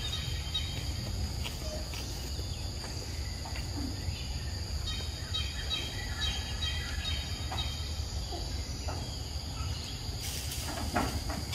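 Outdoor ambience: insects trilling steadily at a high pitch, with birds chirping at times over a constant low rumble.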